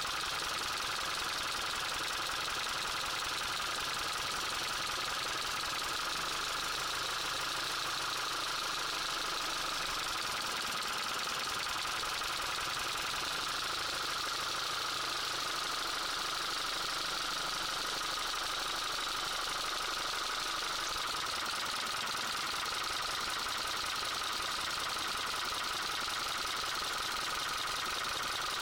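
Car engine idling with a fast, steady knocking and rattling. The knock is being traced by cutting out the spark plugs one cylinder at a time.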